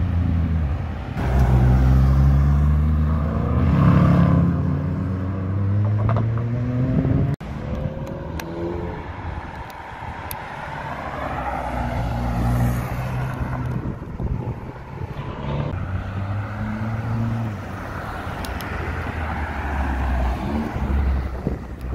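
Sports car engines accelerating along a road, their notes rising and falling as they pass, with a sudden break about seven seconds in. Near the end a Nissan GT-R's twin-turbo V6 swells as it drives past close by.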